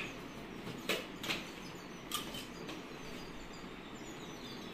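A few light knocks and rustles as makeup pouches and cases are handled and packed into a suitcase, three short sharp sounds in the first two seconds, over steady low background noise.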